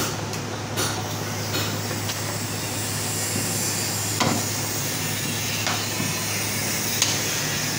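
Knife and leg of mutton knocking on a wooden chopping block during butchering: about half a dozen irregular sharp knocks, the loudest about four seconds in and near the end. A steady low hum and hiss sits underneath.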